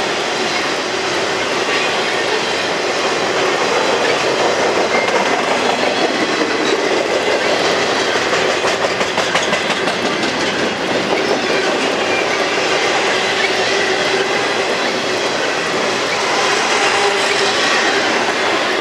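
Freight train cars, autoracks and then double-stack container cars, rolling steadily past close by: a loud continuous rumble and rattle of steel wheels on rail, with the wheels clicking over rail joints.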